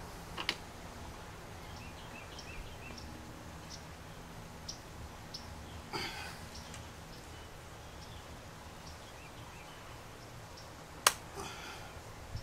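A few sharp metal clicks from a hand tool working at a seized mounting bolt on an old lawnmower engine, the loudest about eleven seconds in. Faint chirping sits under a quiet outdoor background.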